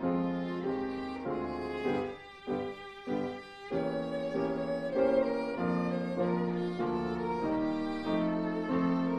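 Instrumental music score led by a violin, its notes changing about twice a second, with a short choppier passage about two seconds in.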